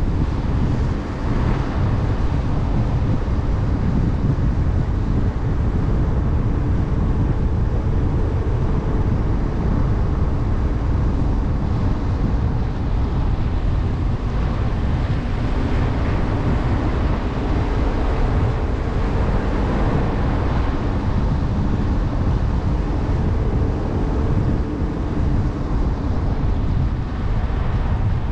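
Jeep Trailhawk SUV driving along a road: a steady low rumble of tyres, engine and wind on the camera microphone, with a faint hum that comes and goes.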